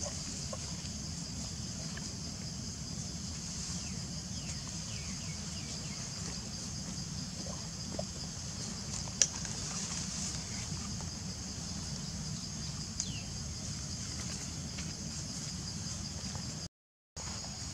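Steady high-pitched insect chorus over a low background rumble, with one sharp click about nine seconds in and a brief drop to silence near the end.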